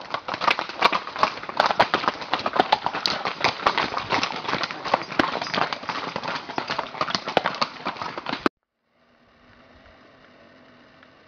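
Hooves of several ridden horses clip-clopping on a cobblestone path, a loud, dense run of overlapping knocks. It cuts off suddenly about eight and a half seconds in, leaving a faint steady hiss.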